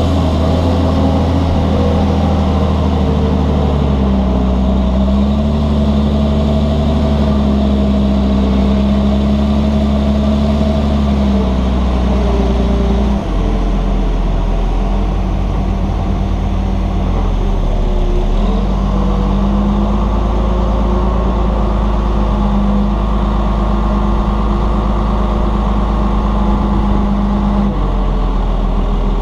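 Diesel engine of a loaded Volvo A35 articulated dump truck running as it hauls clay, its engine note shifting in pitch a few times, with a sudden change about 13 seconds in.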